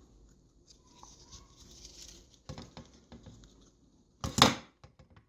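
Light clicks and taps of tools and parts being handled on a soldering bench, with one louder, short clatter about four seconds in.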